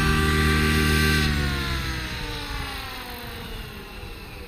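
SAB Goblin 700 electric RC helicopter's Scorpion brushless motor and rotor blades running steadily after touching down, then spooling down from about a second in: the motor whine and blade sound fall steadily in pitch and fade as the rotor slows.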